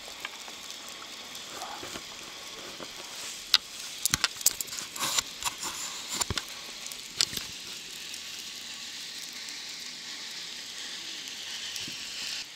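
Steady hiss of rain falling on and around the camera. A cluster of sharp knocks and rubbing comes a few seconds in, from the camera being handled against a jacket.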